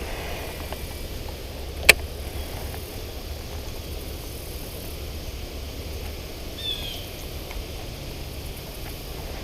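Steady low rumble, with one sharp click about two seconds in and a brief high falling chirp near seven seconds.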